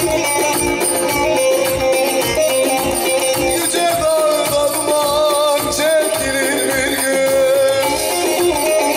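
Turkish Teke-region folk music: a bağlama (long-necked saz) playing a plucked melody over a steady percussion beat.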